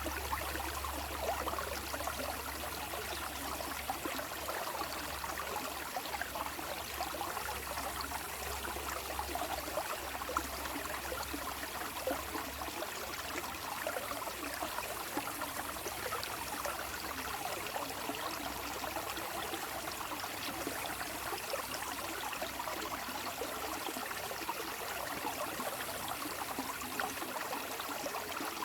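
Running water, like a small stream, trickling and babbling steadily without a break.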